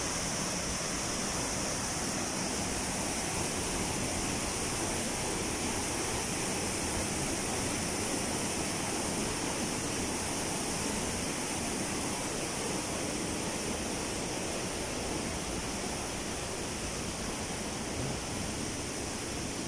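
Waterfall: a steady rush of falling water, easing off a little near the end.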